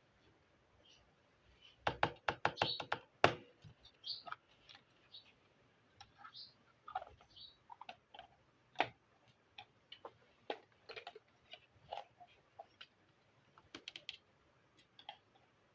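Small plastic toy kitchen pieces clicking and tapping as they are handled, with a quick run of sharper clicks about two seconds in and scattered light taps after.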